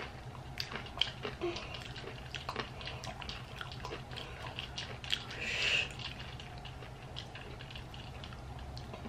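Close-miked mouth sounds of a person eating: quiet chewing with scattered small wet clicks and lip smacks, and a short louder rasp about five and a half seconds in.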